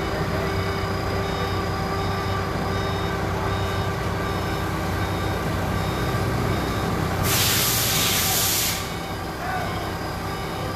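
A heavy vehicle's engine running steadily, with a loud hiss of released air about seven seconds in that lasts about a second and a half.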